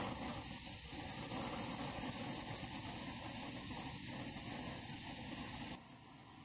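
Camping gas burner screwed onto a nearly empty gas canister that has been warmed in hot water, burning with a tall flame and a steady hiss of gas. About a second before the end the hiss drops suddenly in level and goes on quieter.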